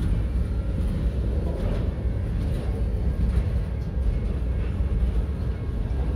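Freight train cars, empty centerbeam flatcars, rolling past: a steady low rumble of steel wheels on the rails.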